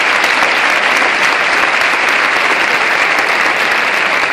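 Audience applauding loudly, a dense steady clatter of many hands clapping.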